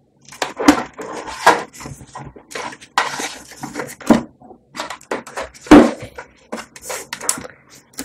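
Irregular clicks and rustles of the case's front-panel USB and audio connector cables and their plastic plugs being handled over the motherboard, with one sharper click a little before six seconds in.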